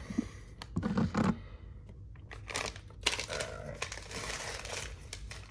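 Paper utensil sleeve crinkling and rustling as it is handled and torn open, after a brief low murmur of voice near the start.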